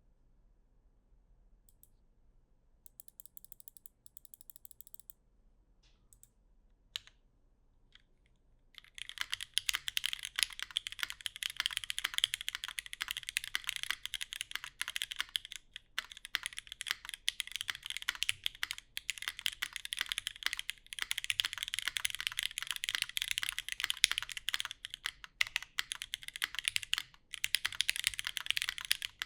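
Keycult No.2 TKL custom mechanical keyboard with retooled Cherry MX Black linear switches, lubed and filmed, and GMK keycaps, being typed on. After a few faint scattered clicks, fast continuous typing starts about nine seconds in and pauses briefly near the end.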